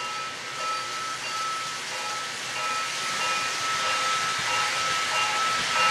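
O gauge model train, a Williams B&O GP9 diesel locomotive pulling cars around the track, running with a steady hiss and a steady high whine. It grows louder towards the end as the train comes closer.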